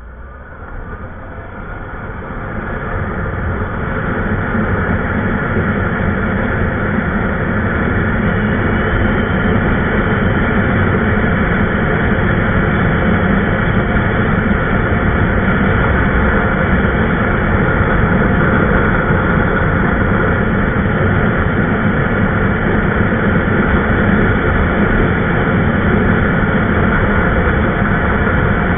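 Motorcycle on the move, its engine and the wind and road noise blending into a steady rush on the onboard camera's microphone, rising over the first few seconds and then holding steady.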